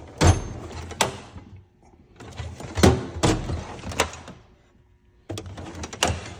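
Rummaging through a steel toolbox drawer: metal wrenches clinking and knocking, with sliding scrapes, in three short bouts.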